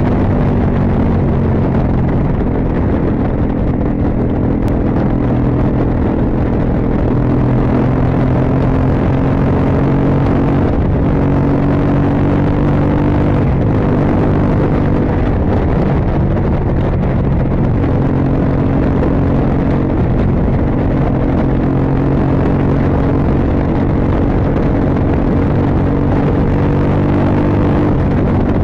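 Motorcycle engine running at a steady pace while the bike is ridden, its note shifting a few times along the way.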